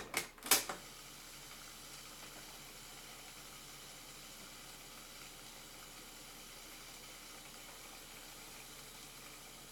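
Akai GXC-39D cassette deck's piano-key transport stopped, with two mechanical clicks in the first half second as the play key releases. Then a faint steady hiss.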